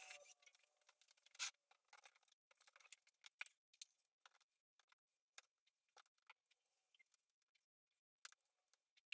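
Faint, scattered scrapes and knocks of a hand tool scooping a thick perlite refractory mix in a plastic bucket, with one sharper knock about a second and a half in.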